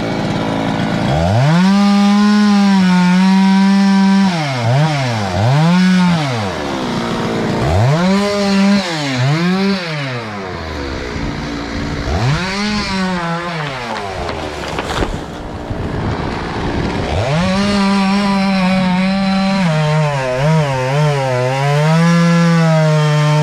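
Two-stroke chainsaw revving to full throttle and cutting into a pine, its pitch dropping back and climbing again several times, then held high for a long cut near the end. A single sharp click sounds about halfway through.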